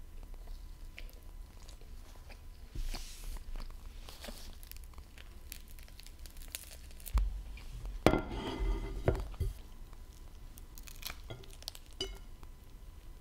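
Eating a crusty baguette banh mi wrapped in a paper towel: the crust crackles and crunches with each bite, the paper rustles, and there is chewing. The loudest crunching comes between about seven and nine and a half seconds in.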